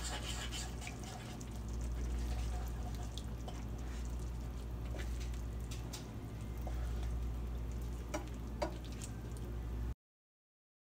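Food cooking in a pan, with scattered light pops and crackles over a steady low hum. The sound cuts off abruptly near the end.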